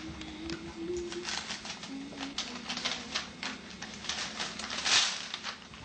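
Paper crinkling and rustling in the hands as a present is unwrapped, in many short crackles with a louder rustle about five seconds in.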